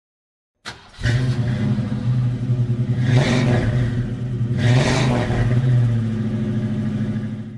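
Car engine idling with a steady beat, revved twice in short blips, then cut off abruptly.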